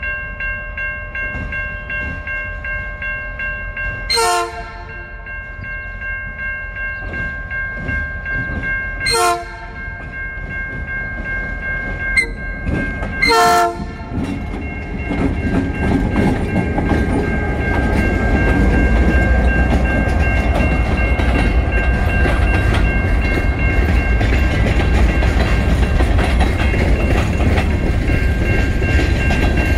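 Norfolk Southern freight train approaching and passing. The diesel locomotive's horn gives short blasts about four and nine seconds in and a longer one around thirteen seconds, over a steady ringing bell. From about fifteen seconds in, the locomotive and then covered hopper cars roll past with a loud, steady wheel rumble and clickety-clack.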